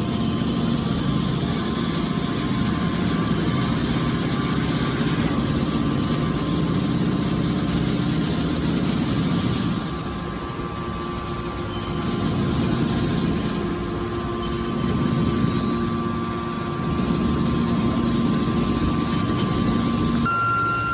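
Heavy-duty hydraulic baler running: a steady machine hum with a low rumble and a held whine, easing slightly about ten seconds in and again near sixteen seconds.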